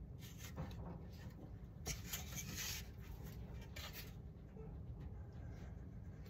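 Faint scratching and rubbing from a balsa model-glider wing being handled on the workbench, busiest in the first four seconds and quieter after.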